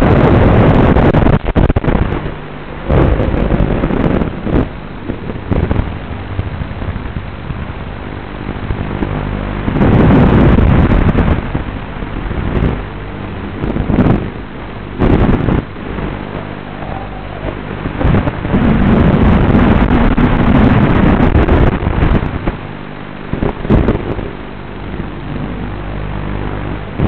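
FPV quadcopter's motors and wind rush, heard through a crackly analog video link, surging loudly every few seconds as the throttle is punched and falling back between.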